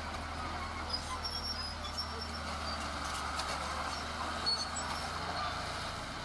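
Heavy construction machinery engine running steadily, a continuous low hum with working noise over it.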